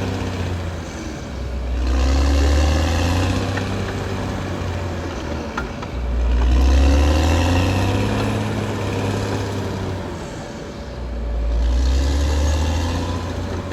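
Caterpillar D6R XL bulldozer's diesel engine working, revving up under load and easing off three times in a row.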